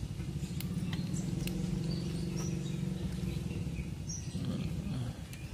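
A steady low hum with several even tones in it, dipping briefly near the end. Over it come a few faint clicks as plastic wiring connectors are pushed onto a motorcycle's regulator-rectifier, and faint bird chirps.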